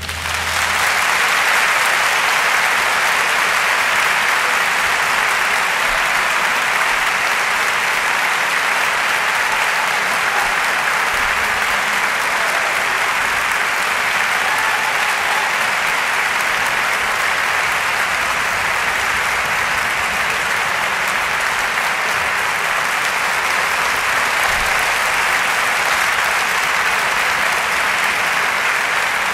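Large concert-hall audience applauding steadily at the end of a piece, the clapping rising to full strength within the first second.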